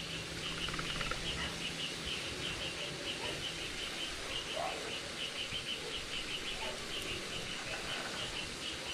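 Insects chirping: a steady run of short, high, rapidly repeated chirps over a faint even hiss.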